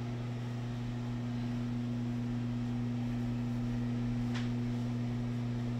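A steady low hum with a fainter, higher steady tone above it, unchanging throughout, and a faint tick about four seconds in.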